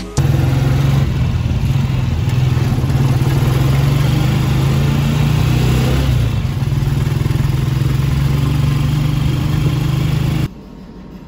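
Motorcycle engine of a tricycle running steadily under way, with road and wind noise, easing slightly about halfway through. It cuts off suddenly near the end.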